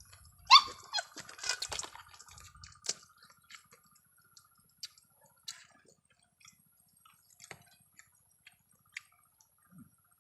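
Close-up eating sounds: wet chewing with sharp clicks and smacks, busiest in the first two seconds, then only scattered clicks.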